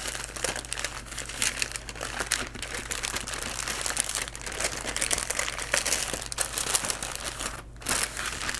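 Plastic zip-top bag crinkling as its zipper is pressed shut and the bag is folded and handled.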